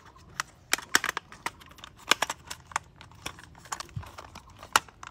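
Plastic parts of a toy McQueen car clicking and knocking against each other as the body and chassis are handled and pressed together: a run of irregular sharp clicks and taps.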